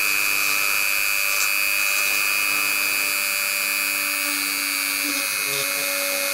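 Small handheld rotary tool with a 1 mm milling bit running at its lowest speed, cutting a window hole into a 3D-printed PLA plastic part. A steady high whine.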